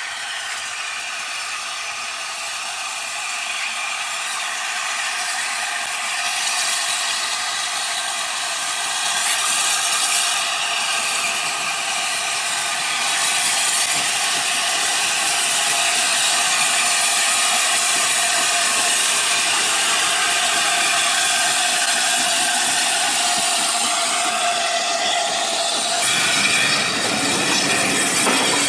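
A steam train approaching, its sound growing steadily louder. Near the end the coaches roll past close by on the rails.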